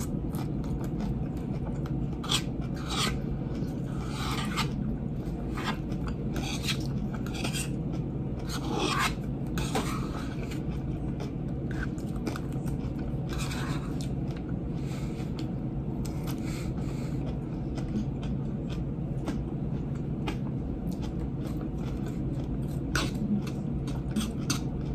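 White plastic fork scraping, stirring and spearing spinach salad in a plastic bowl, in short irregular strokes, with chewing between bites. A steady low hum runs underneath.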